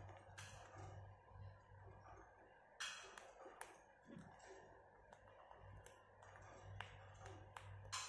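Faint, scattered clicks and crunches of a rose-ringed parakeet's beak biting into an almond held in its foot, with a few sharper cracks about three seconds in.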